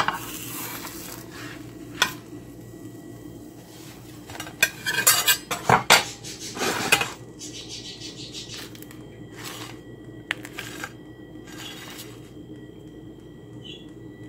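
Kitchen clatter of a frying pan and plate: sharp knocks near the start and about two seconds in, then a loud run of clanks and scrapes around the middle, and a few lighter clicks after, over a low steady hum.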